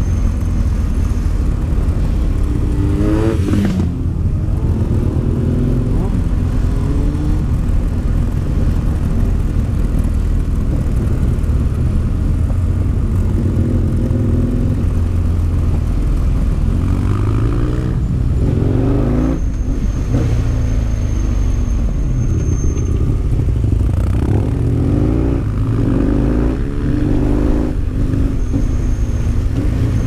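Husqvarna Nuda 900's parallel-twin engine running on the ride, its revs rising and falling again and again as it goes through the hairpins, over a steady rush of wind on the microphone.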